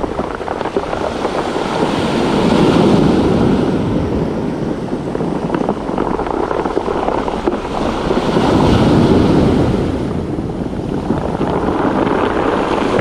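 Sea waves breaking and washing up over a pebble beach, surging louder twice, with wind buffeting the microphone.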